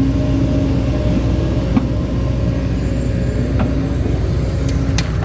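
Heavy diesel engine running steadily under a constant low drone, with a few light knocks over it.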